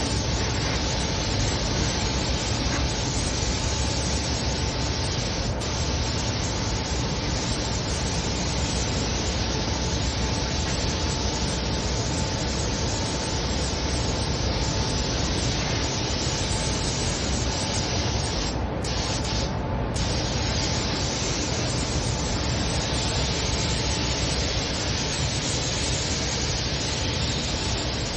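Air spray gun hissing steadily while applying underbody coating, the hiss cutting out twice briefly about two-thirds in.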